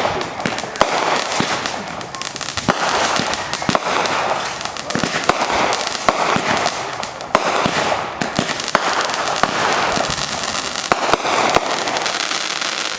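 Fireworks display: many sharp bangs of bursting shells in quick succession over a continuous crackling hiss.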